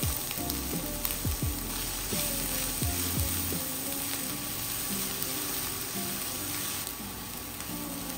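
Diced onion sizzling in hot oil in a stainless steel frying pan, stirred with a spatula.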